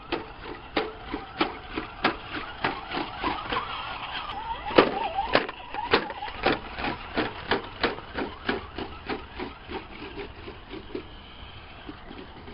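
Footsteps of someone walking, a steady sharp step about three times a second. In the middle a louder, noisier stretch joins in, with a brief wavering whine.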